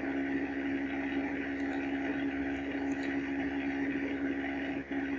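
Steady low hum with an even hiss: background noise on the microphone while no one speaks.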